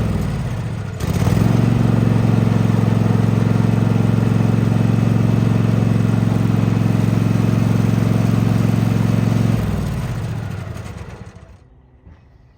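Riding mower's engine running steadily, sagging in speed about a second in before picking back up, then winding down and dying near the end. This shutdown is the mower's stalling fault, which turns out to be a bad relay.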